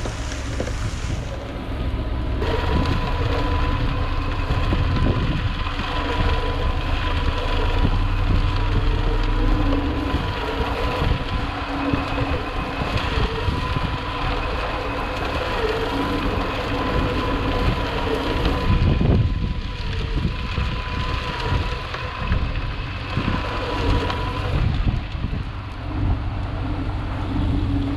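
Work truck driving: engine and road noise with a steady whine running under it.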